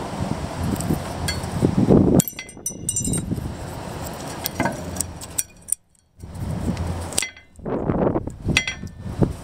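Metal brake pad abutment clips being pushed and snapped into a disc brake caliper bracket by hand: several light metallic clicks and clinks over handling noise.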